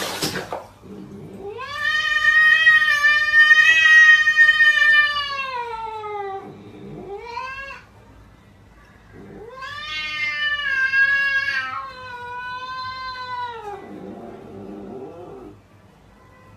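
Angry cat yowling in long drawn-out wails. A long yowl falls in pitch at its end, then comes a short one, then a second long wavering yowl and a fainter short one.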